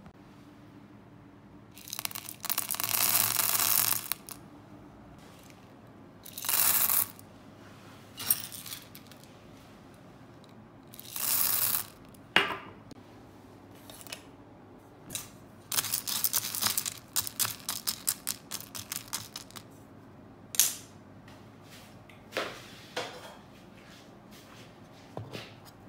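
Hard wax beads rattling as they are scooped with a metal scoop and poured into the metal pot of a wax warmer. The pours come in several separate bursts, the longest about two seconds. Between and after them are short runs of quick clicks and single ticks of beads dropping onto beads.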